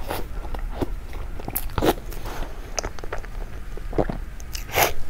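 A person eating soft, creamy soy-milk cake from a spoon: wet chewing and lip-smacking, with louder smacks about two and five seconds in.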